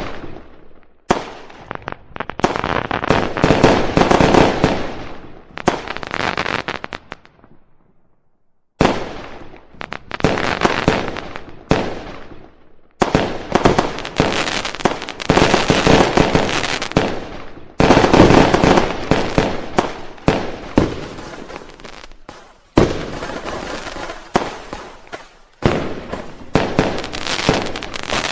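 Fireworks going off in dense volleys of rapid bangs and crackles. The volleys come in several stretches that start abruptly, with one lull of about two seconds about a third of the way in.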